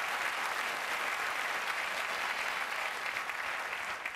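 Studio audience applauding a comedian's punchline, a steady wash of clapping that begins to thin out near the end.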